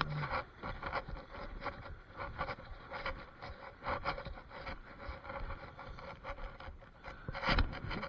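Irregular rubbing and scraping of clothing and gear against a body-worn action camera as the wader moves, with a louder knock near the end.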